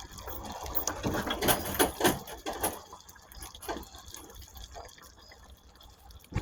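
Pot of flour-thickened venison stew bubbling at a rolling boil over high heat, with irregular pops and gurgles that are busiest in the first few seconds and then thin out.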